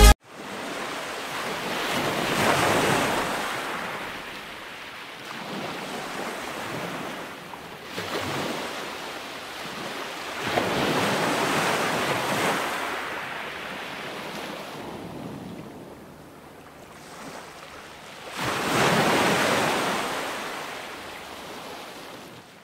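Sea surf breaking and washing up on a sandy beach, swelling and fading in long surges every several seconds, the last surge among the loudest.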